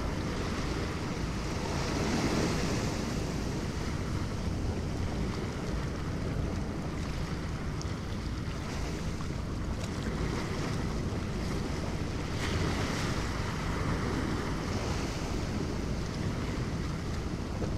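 Sea waves washing over reef rocks, a steady rushing wash that swells about two seconds in and again past the middle, with wind buffeting the microphone.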